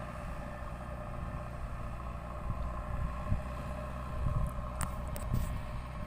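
JCB 3DX backhoe loader's diesel engine running steadily as the front loader bucket pushes soil across the field, with a few low thumps in the second half.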